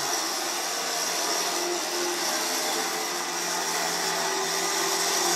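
Warrior Samurai S9500 HS high-speed electric winch running with no load, its motor and gear train giving a steady whine as the drum spools synthetic rope fast.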